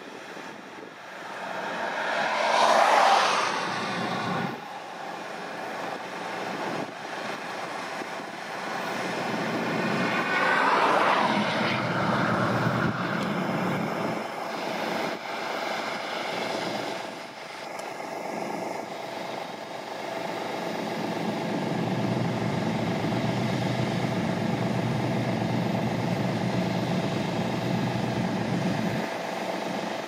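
Fendt 5220 E combine harvester running as it harvests wheat: a steady drone of engine and threshing machinery, with a steady whine over it. It swells louder about three seconds in and again about eleven seconds in.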